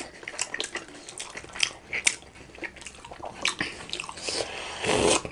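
Close-miked wet chewing and lip smacking while eating steamed chicken momo, with a louder, noisier mouth sound near the end.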